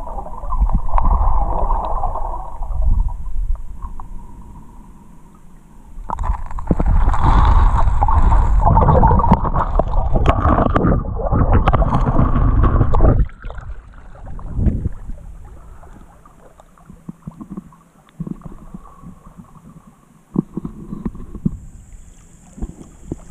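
Muffled rushing and gurgling of river water heard through an underwater camera housing, with a louder, rougher stretch in the middle that cuts off suddenly. Near the end the camera comes out of the water and a faint hiss of wind comes in.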